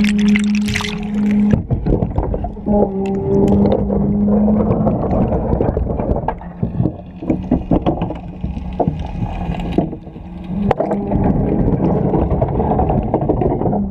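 Long-reach excavator working, heard muffled as if the microphone were underwater: a steady machine hum that stops about a second and a half in, then churning water with scattered knocks and clicks.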